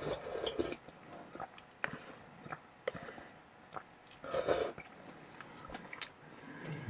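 Someone eating noodle soup: two short slurps, one near the start and one about four and a half seconds in, between chewing and light clicks of chopsticks on a plastic bowl.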